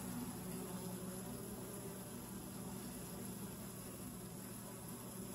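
Honeybees buzzing inside a clear entrance tube of an observation hive: a steady, low hum that wavers slightly as the bees move.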